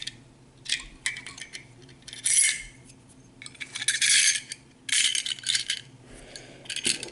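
Pistol magazine parts being handled: a spring, plastic follower and magazine body clicking, rattling and scraping against each other in several short bursts.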